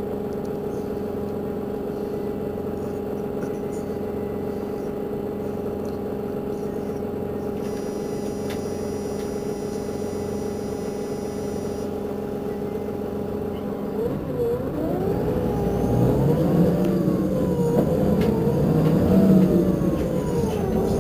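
Irisbus Crossway coach's diesel engine idling steadily. About two-thirds of the way in, a louder engine sound joins it, its pitch rising and falling.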